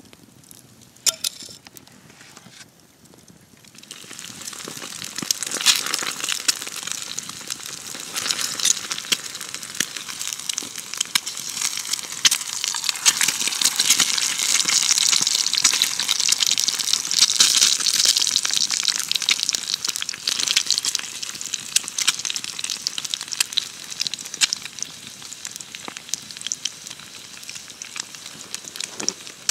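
Eggs frying in a frying pan: a dense sizzle and crackle that starts suddenly about four seconds in, swells through the middle and eases somewhat toward the end.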